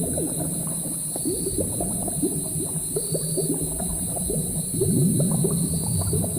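A cauldron of thick liquid bubbling, with many quick popping blips that rise in pitch, over a low steady rumble and a constant high hiss.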